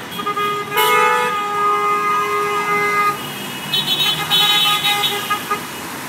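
Car horns honking in support of a roadside protest that asks drivers to honk. One long horn is held for about three seconds, with a second horn joining briefly about a second in, followed by a run of short toots.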